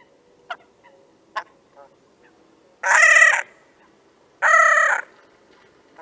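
Great crested grebe calls: two loud, harsh, braying calls, each about half a second long and about a second and a half apart, after a few short faint ticking notes.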